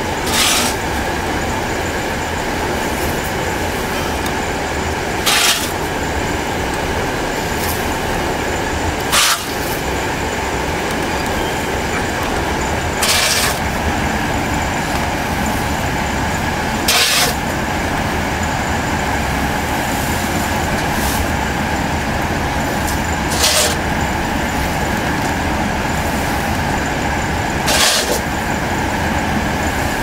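Continuous carbonization furnace machinery running with a steady mechanical drone. About seven short, sharp bursts of hiss-like noise come every four to six seconds.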